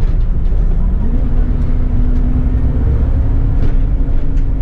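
City bus driving, heard from the driver's cab: a steady low engine and drivetrain rumble, with a tone that rises in pitch about a second in and then holds.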